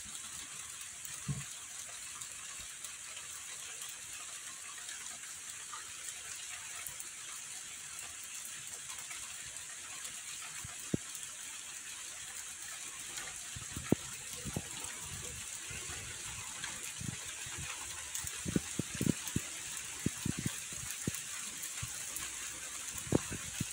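Steady, even hiss of light rain falling on a garden, with scattered short soft thuds.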